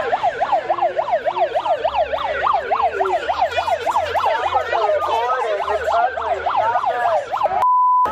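An electronic siren in fast yelp mode, its pitch sweeping up and down several times a second. Near the end it gives way to a short steady one-tone bleep.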